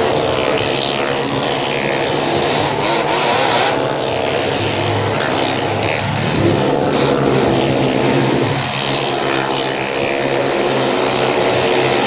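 Motorcycle engines running hard as the bikes circle the vertical wooden wall of a well-of-death drum, a loud continuous drone whose pitch wavers slightly as they go around.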